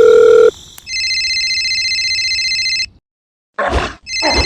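Electronic telephone sounds: a steady tone that cuts off about half a second in, then a fast-warbling telephone ring for about two seconds. After a short silence come a couple of brief noisy sounds, and the ring starts again near the end.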